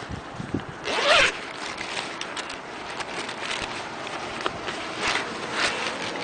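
Zipper on a black fabric carrying bag pulled open in one quick rising zip about a second in, followed by rustling as a plastic-wrapped solar panel is drawn out of the bag.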